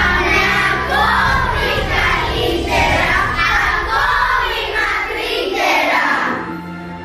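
A group of children singing together in long phrases, fading out near the end.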